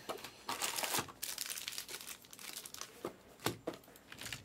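Plastic foil trading-card pack wrappers crinkling and rustling as they are handled, with a few sharp clicks and taps.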